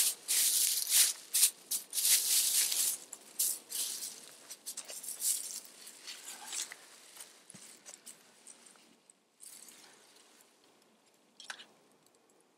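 Clothing rustling and snow crunching as a person moves about and sits down on a log, loudest over the first few seconds, then thinning to faint handling sounds with one short crinkle near the end.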